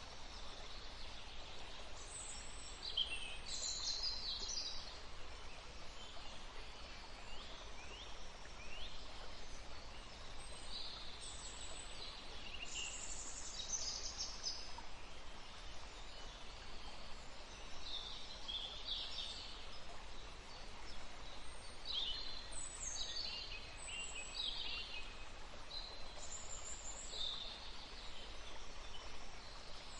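A woodland stream flowing steadily, with songbirds calling and chirping again and again over it.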